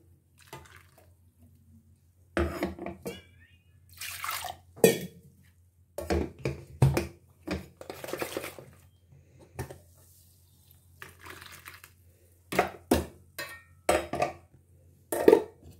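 Steel ladle knocking and scraping against a stainless-steel bowl as a thin mango-mustard gravy is stirred, with liquid splashing as masala and water are poured in. The clanks come irregularly, the loudest about five seconds in.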